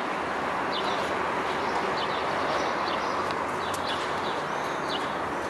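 Outdoor background of a steady rushing noise, with small birds chirping briefly every so often.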